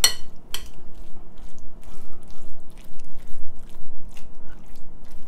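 A metal spoon stirs a wet chickpea-and-yogurt mixture in a glass bowl, giving soft irregular wet mixing sounds and small clicks of the spoon against the glass. The two sharpest clicks come right at the start, about half a second apart.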